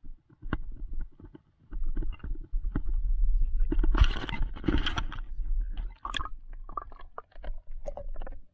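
River water sloshing and splashing around an action camera held at the surface and dipped under, heard as a muffled low rumble with handling knocks; the loudest splashing comes about four to five seconds in.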